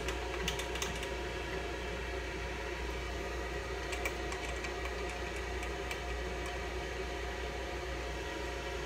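Steady machine hum with a few faint clicks and taps as the resin vat is seated and its thumb screws are tightened by hand on an Anycubic Photon LCD resin printer.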